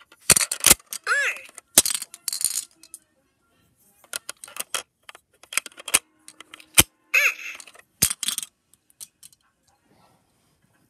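Repeated clicks and knocks of hard plastic toys being handled, with a couple of short electronic toy sound effects.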